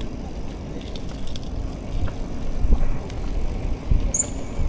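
Outdoor street noise: a low rumble with irregular knocks and bumps, and a short high-pitched squeal about four seconds in.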